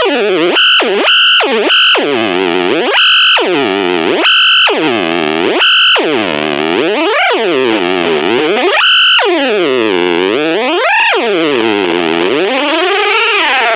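Analog delay pedal self-oscillating through a small battery-powered Junkbox amp, with its pitch swooping down and back up over and over as the knobs are turned. A high steady tone cuts in and out during the first half, and it settles into a slower wobble near the end. Oscillation like this with the dials maxed is what the owner suspects may mean the pedal is broken.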